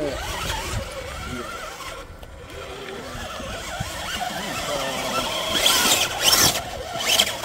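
Radio-controlled rock crawler's electric motor and geared drivetrain whining as it crawls over boulders. Near the end come a few loud, short scraping bursts as its tyres and chassis scrape on the rock.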